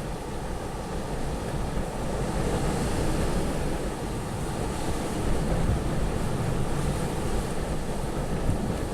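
Windstorm wind blowing in gusts and buffeting the microphone with a low rumble. It grows louder about two seconds in and swells again in the second half.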